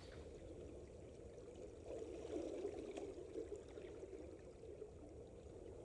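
Faint flowing river water, its sound sitting low and murmuring with little hiss above it.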